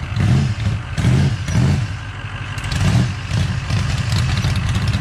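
Carbureted 383 stroker small-block Chevy V8 in a mud truck running, its revs swelling and dropping in several uneven blips.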